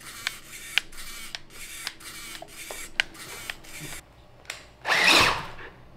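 An RC car's motor and steering servo twitching in short, irregular mechanical bursts and clicks, several a second, as it is driven from a PS4 controller over a Raspberry Pi link, with a faint steady hum under them. About five seconds in comes a louder rush of noise lasting about half a second.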